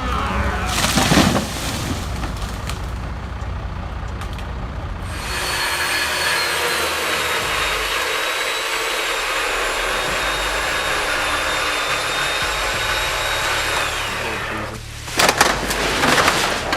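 A motor running steadily at a nearly constant pitch, with sharp knocks about a second in and a cluster of knocks near the end.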